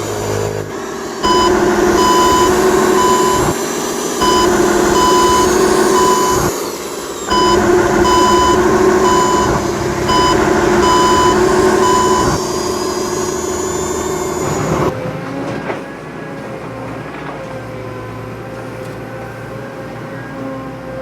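Electric RC construction model's motors whirring with an electronic reversing beeper sounding about once every two-thirds of a second, in four spells over the first twelve seconds or so. After about fifteen seconds the beeping has stopped and only a quieter steady hum remains.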